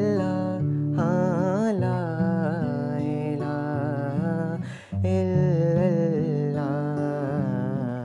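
A man singing a drawn-out, wavering melodic line to acoustic guitar accompaniment, with a brief gap in the music about five seconds in.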